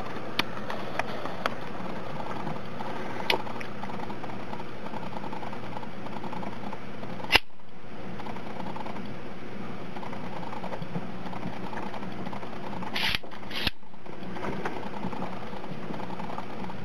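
Microtech HALO V single-action out-the-front automatic knife handled with a few light clicks. About seven seconds in comes one sharp, loud snap as the blade fires out, and two more clicks come about half a second apart near the end, over a steady low hum.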